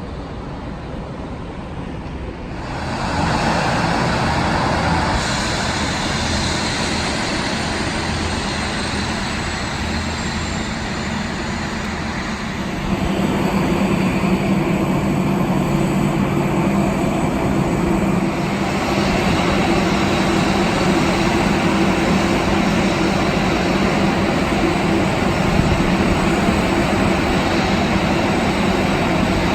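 Jet airliner engines running close by: a steady rush of engine noise that gets louder about 3 s in, with a high whine falling slowly in pitch, then a steady low hum from about 13 s on.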